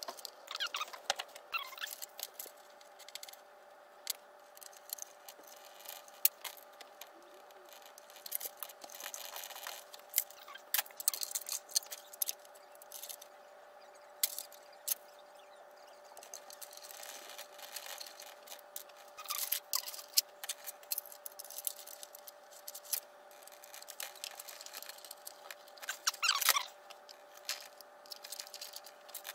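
Bundles of wire pigtails with plastic plug ends being handled and fished through the openings of a plastic electrical enclosure: irregular rustles, clicks and rattles, over a faint steady hum.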